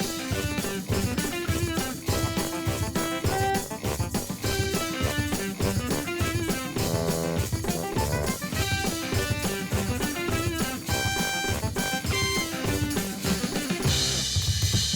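A small cartoon band playing a lively tune together, a drum kit keeping a steady beat under tuned instruments.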